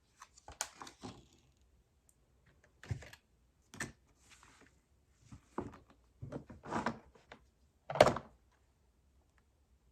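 Hands at work with paper and small crafting pieces on a tabletop: a string of scattered knocks, taps and paper rustles, the loudest knock about eight seconds in.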